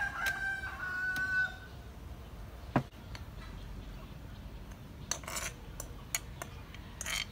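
A rooster crows once at the start. A sharp clink comes just before three seconds in, then short scrapes of a spoon in a clay mortar as the chili dressing is scraped out onto sliced ambarella fruit.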